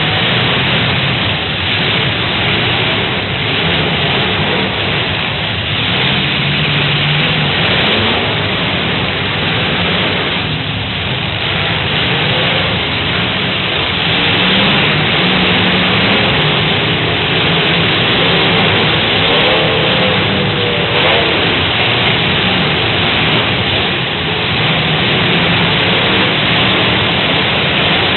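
Demolition derby cars' engines running and revving together, a loud, dense noise with pitch rising and falling now and then.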